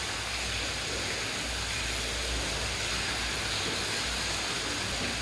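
Well water streaming out of a Hudson float valve at the top of a plastic storage tank and splashing onto the tank's bottom, a steady rushing hiss: the float valve is open, filling the tank.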